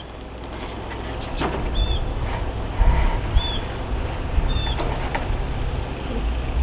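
Low, steady wind rumble on the microphone. Over it a bird gives a short high chirp about every second and a half, and there are a few light knocks.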